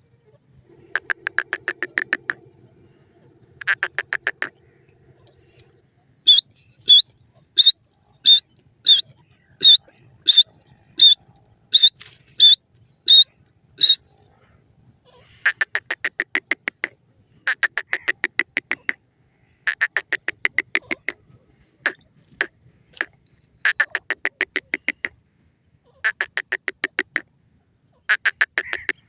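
Grey francolins (teetar) calling. Bouts of rapid rattling chatter, each about a second long, come again and again. In the middle, a run of about a dozen sharp, high notes is evenly spaced, roughly one and a half a second.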